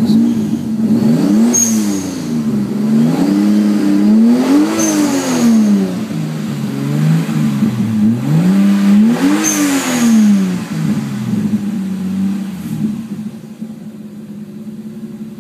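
Toyota Supra Twin Turbo's inline-six engine revved in a few throttle blips, its pitch rising and falling, then settling to a steady idle near the end. It is running with LS2 coils on a homemade IGF signal circuit feeding the ECU.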